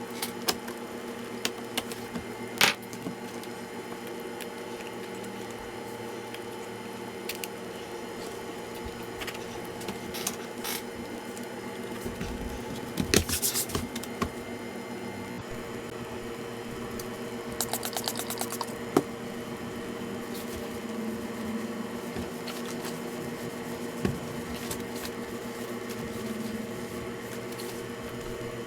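Scattered small clicks and taps of hands handling laptop parts, with a short rattle about halfway through and a quick run of fine clicks soon after, over a steady hum.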